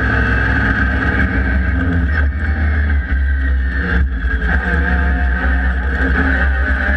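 Engines of E Production race cars running loudly at the start, several engine notes sounding together at fairly steady pitch, with brief dips in loudness around the middle.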